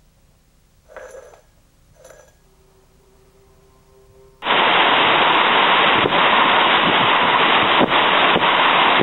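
Strong storm wind blasting against the microphone as a loud, steady rush, which cuts in abruptly about halfway through, with a few sharp knocks from gusts. Before it there are only faint, scattered sounds.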